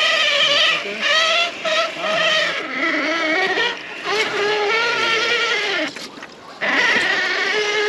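Electric motor and drivetrain of a Traxxas TRX-4 RC crawler whining, its pitch wavering up and down with the throttle. It drops away briefly about six seconds in, then picks up again.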